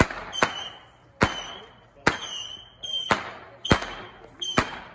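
Consumer fireworks going off in a rapid series, about seven loud bangs roughly one every 0.7 s. Each bang is followed by a short high tone and a fading crackle.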